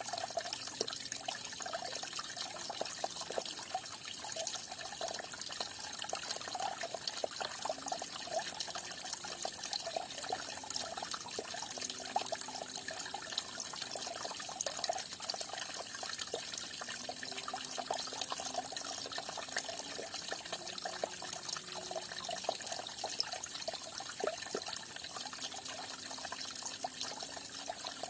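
Water falling and splashing steadily, a continuous trickle full of small droplet splashes.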